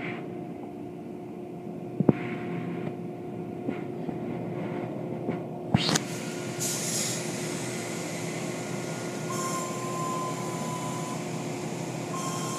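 Automatic tunnel car wash machinery heard from inside the car: a steady mechanical hum with the soapy cloth curtains and brushes slapping against the car, giving sharp knocks about two and six seconds in. From about six seconds in a hissing water spray joins, and a thin steady whine comes and goes near the end.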